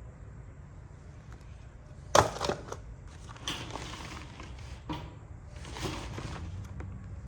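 A sharp knock about two seconds in, then several short scuffing, crunching noises over a steady low rumble.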